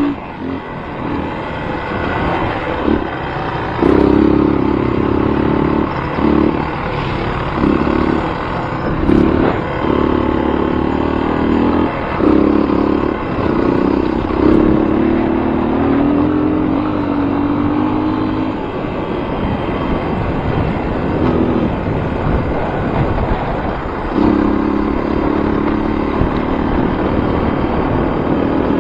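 A motor vehicle engine running, revved in repeated short bursts through the middle, settling, then held steady again near the end.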